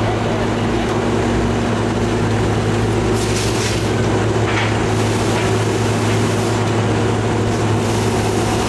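Steady drone of heavy construction machinery running at constant speed, a deep even hum with fainter higher tones over it. A few short hissing bursts come through in the middle.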